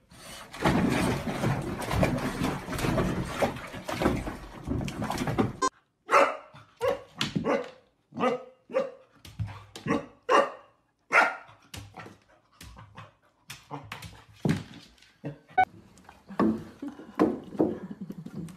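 A dog barking at its own reflection in a mirror: a long run of short, sharp barks about two a second, starting about six seconds in and growing fainter near the end. Before that, a dense rushing wash of bath water with a small dog in the tub, which cuts off suddenly.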